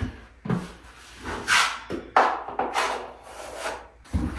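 Wide drywall knife drawn across drywall, spreading a thin final coat of water-thinned joint compound in several separate scraping strokes.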